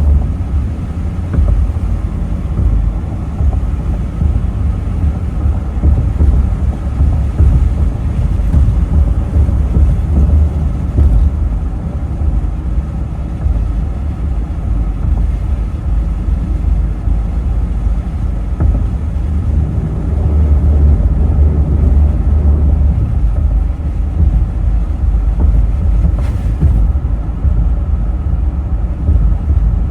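Steady low rumble of a vehicle driving, road and engine noise heard from inside the car.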